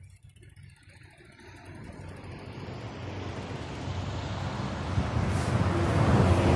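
A road vehicle approaching, its steady noise growing louder all the way through.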